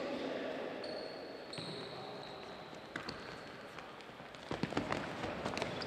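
Indoor court shoes squeaking on a wooden sports-hall floor, in short high squeals about a second in and again near three seconds. A cluster of sharp thuds from the ball being kicked and hitting the floor comes near the end, over the echoing hall.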